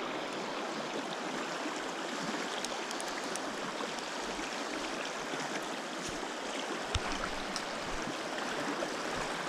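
Rushing water of a river rapid, a steady hiss, with a few faint clicks and a single low knock about seven seconds in.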